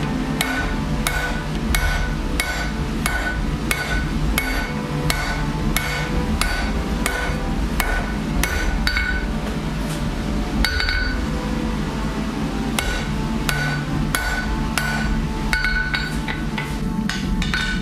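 Hand hammer striking metal on an anvil in a steady forging rhythm, about two blows a second, each blow followed by a bright metallic ring, with a brief pause about ten seconds in.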